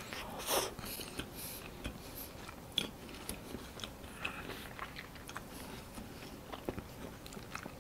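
A person chewing a soft, spongy cake-like custard cream sandwich: quiet, irregular wet mouth clicks and soft squishing.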